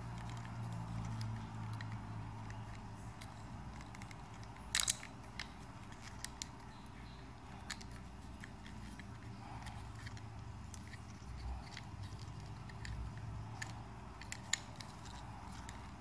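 Faint handling of a small plastic USB-C microphone adapter being fitted to a GoPro Hero 7, with a few sharp clicks, the clearest about five seconds in and another near the end, over a low steady hum.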